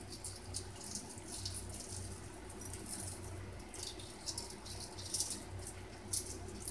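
Fingernails picking and cracking at an eggshell: irregular faint crackles and small clicks, over a low steady hum.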